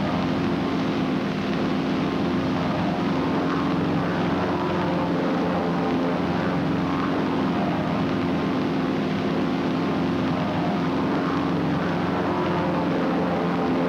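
Steady drone of a North American SNJ trainer's Pratt & Whitney R-1340 nine-cylinder radial engine and propeller in level cruise, an even hum that holds at one pitch.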